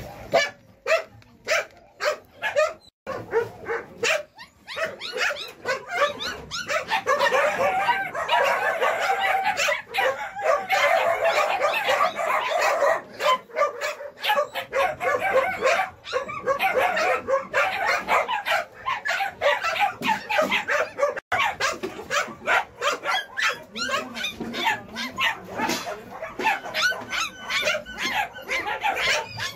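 A litter of young puppies squealing, yelping and whimpering all at once, many thin high cries overlapping, as the hungry pups crowd a food bowl. A few sharp clicks come near the start.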